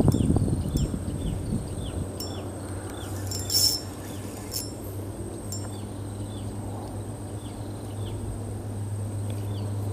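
Spinning reel and fishing line being handled, with clicks and rustling loudest in the first second or so and a few sharp clicks later on. Behind it are a steady low hum and a small animal's short descending chirp repeating about twice a second.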